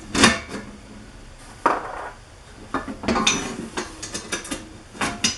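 Bolts, washers and nuts clinking and knocking against the parts of a screen-holder rack as they are fitted by hand: a few separate strikes, then a quicker run of light clinks in the middle.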